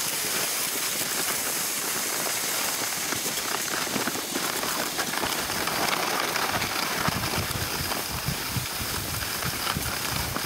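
Skis sliding over packed snow, a steady hiss, with wind rumbling on the microphone more strongly from about halfway through.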